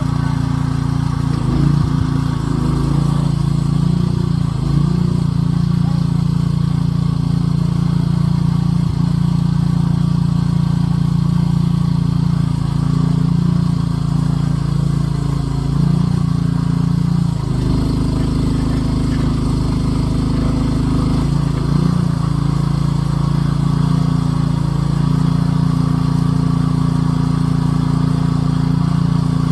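Small engine running steadily at a constant speed, its note shifting briefly several times, most noticeably for a few seconds past the middle, as if the machine is taking load.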